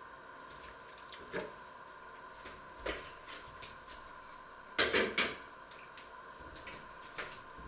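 Light knocks and clatters of kitchen things being handled and set down, with a cluster of three louder knocks about five seconds in, over a faint steady hum.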